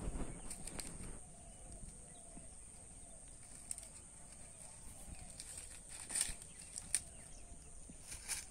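Dry fallen leaves rustling and crackling faintly as they are stirred underfoot and by hand, with a few sharper crackles later on, over a steady high hiss.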